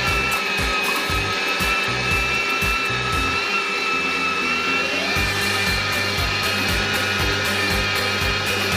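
Electric meat grinder motor running with a steady high whine, which rises as it spins up just before and then holds. Background music with a steady beat plays along.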